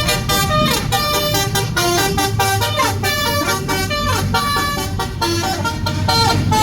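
A bus's musical 'telolet' horn (a multi-tone basuri-type horn) playing a fast tune of short notes, several of them sliding downward, with the bus's engine running underneath.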